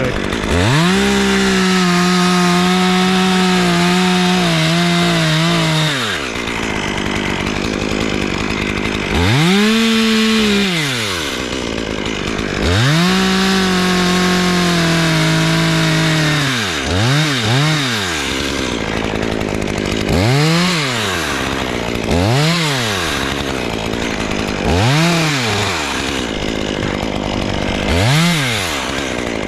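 Two-stroke chainsaw revved up and held at full throttle for a few seconds, dropped back to idle, revved again, then blipped in a string of about six short revs with idling in between.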